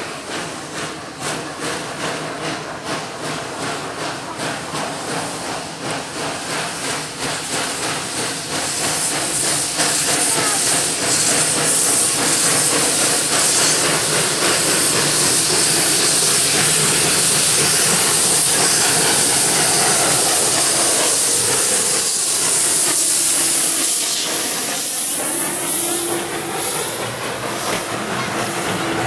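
Ol12-7 steam tank locomotive starting away with a train: rhythmic exhaust chuffs, then a loud steam hiss from the open cylinder drain cocks as the engine passes close by. Near the end the coaches roll past.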